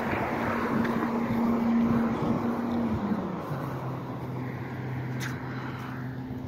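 A heavy trash truck's diesel engine hums at a raised, steady speed, then drops to a lower steady speed about three seconds in.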